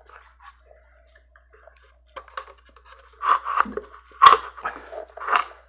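Handling noise as a paper-cup assembly is pulled apart: paper cups rustling and a metal axle rod scraping as it is slid out of the hub, with a sharp click about four seconds in.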